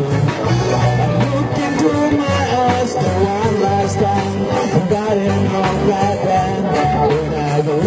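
Live band music in a Melanesian style: a sung vocal line over a steady bass and a regular drum beat.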